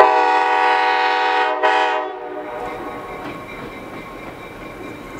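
EMD MRS-1 diesel locomotive's air horn sounding one blast of about two seconds, with a short second sounding near its end, followed by the train's steady rumble.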